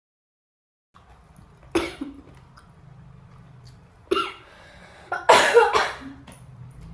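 A person coughing in three short fits, the longest and loudest near the end, over a faint low hum.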